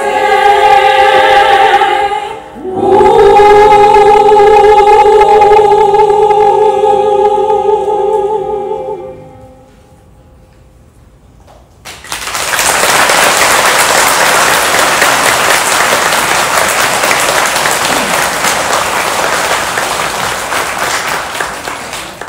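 Women's choir singing the final phrase of a Buddhist hymn, ending on a long held chord after a short breath, which dies away about nine seconds in. After a pause of two or three seconds the audience breaks into applause, which runs on and slowly fades.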